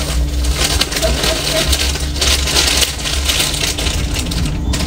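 Plastic bag of dry cake mix crinkling and rustling as the mix is shaken out of it into a mixing bowl, over a steady low hum.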